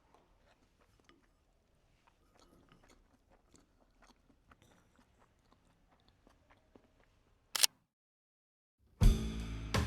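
Faint, irregular small clicks and crunches of eating or handling food, with one short, sharp, louder knock about seven and a half seconds in. Music starts near the end.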